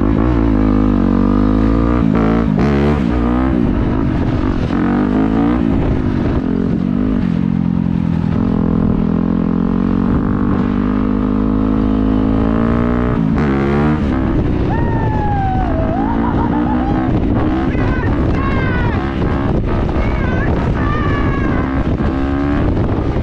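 Dirt bike engine accelerating and shifting, its pitch climbing and dropping again and again through the first half. Later come higher whines that rise and fall. A heavy low wind rumble on the microphone runs under it all.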